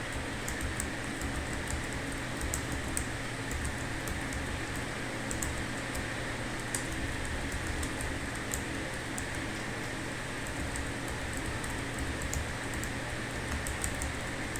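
Computer keyboard being typed on: an irregular stream of light key clicks, a few a second with short pauses, over a steady background hum.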